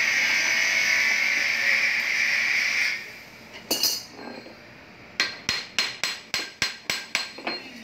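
A steady hiss for about the first three seconds, a single clink, then a quick run of about nine sharp, ringing metal-on-metal hammer taps, roughly four a second, while a worn bearing is being drawn off an alternator rotor shaft with a bearing puller.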